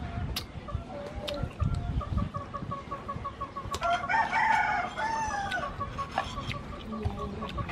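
A rooster crows once, about four seconds in, over a steady run of fast, even high chirps.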